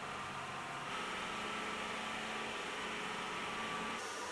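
Metal lathe running while turning a large aluminium cylinder: a steady machine hum with a faint high whine, shifting slightly about a second in and again near the end.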